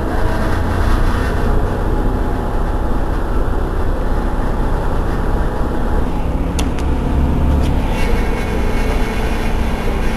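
Irisbus Citelis 12 city bus running with a steady low engine rumble, and a single sharp click about six and a half seconds in.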